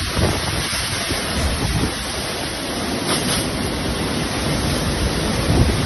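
Strong monsoon wind gusting with heavy rain, a loud, steady rush with low rumbling gusts buffeting the microphone.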